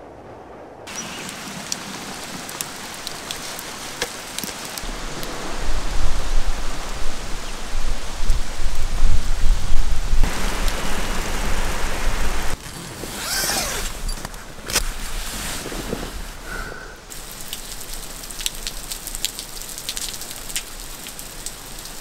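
Steady rain falling, with scattered sharp drop ticks. A long low rumble swells from about five seconds in and stops abruptly at about twelve and a half seconds.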